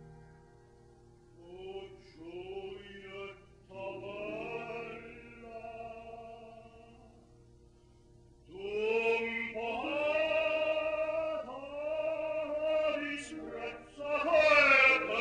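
An operatic tenor singing an Italian aria, a single male voice with vibrato. The phrases are soft at first, then from about halfway the singing grows much louder and fuller, reaching its loudest near the end.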